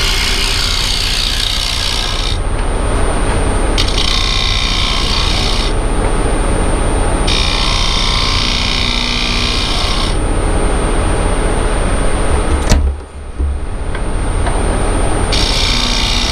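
Wood lathe running steadily while a tool is worked against the spinning wood in passes of a couple of seconds each, making a scraping hiss that starts and stops several times. A single sharp knock comes about three-quarters of the way through.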